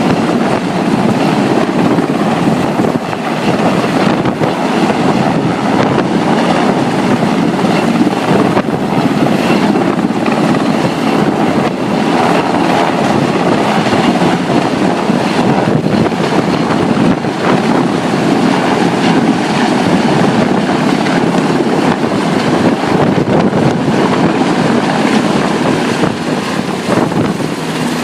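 Helicopter with its cargo hook lowered, its rotor and engine running steadily and loudly close by, with wind buffeting the microphone.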